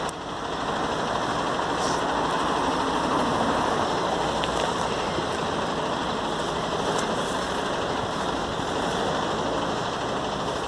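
A car driving past over a steady rushing rumble of traffic noise, a little louder a few seconds in.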